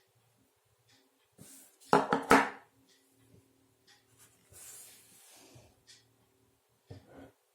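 Handling noise on a hard surface: a quick cluster of loud knocks and clatter about two seconds in, soft rubbing or scraping later, and two more knocks near the end.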